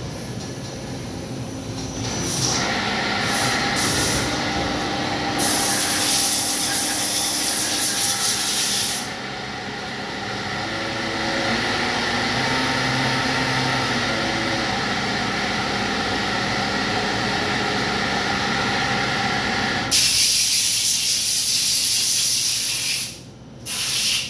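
Daewoo Puma CNC lathe running, with a steady spindle whine made of several tones that change pitch now and then. Two stretches of loud hiss, about five seconds in and again near the end, each lasting a few seconds.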